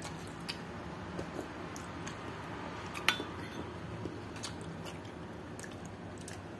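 Light clicks of a metal spoon against a ceramic soup bowl, with one sharper clink about three seconds in, over a faint steady hum.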